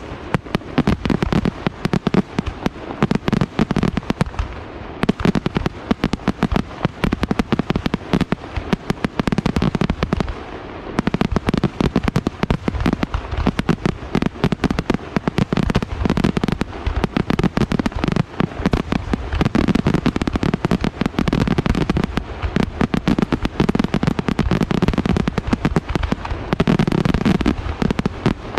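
Aerial fireworks display in a dense, rapid barrage: sharp bursts and reports follow one another many times a second, with only a couple of brief lulls.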